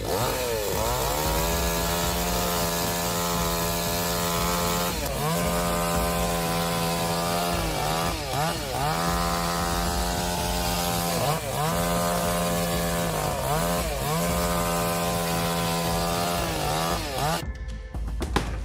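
Two-stroke chainsaw running at full throttle in a cut, a steady high-pitched engine note. Its pitch sags and comes back about four times, as the chain bogs in the wood or the throttle is eased. The saw stops about a second before the end.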